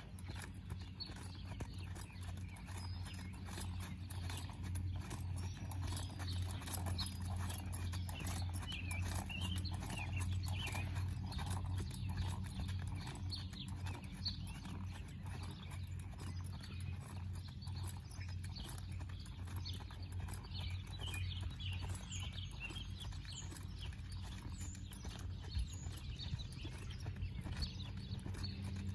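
Hoofbeats of a young Paint mare jogging on a soft dirt arena, over a steady low rumble, with birds chirping now and then.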